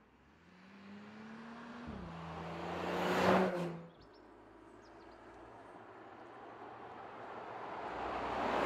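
Porsche Macan S V6 driving past twice. The engine note climbs and steps down once about two seconds in, swells to a loud pass at about three seconds, then cuts off. A second approach builds steadily to another loud pass at the end.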